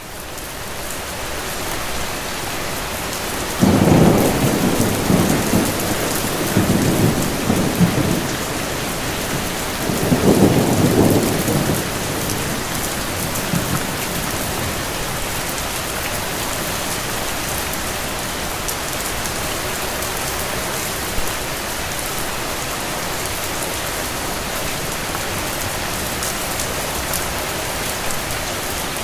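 Steady rain falling, fading in over the first couple of seconds, with rolling thunder: a long rumble beginning about four seconds in, and a second one around ten seconds in.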